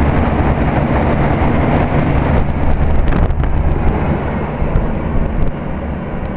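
Circa-1973 General Electric central air-conditioner condensing unit running: a steady rush of condenser-fan air and buffeting over a low hum. Most of the noise is the old fan and age-related shakes and rattles; the reciprocating compressor is very quiet.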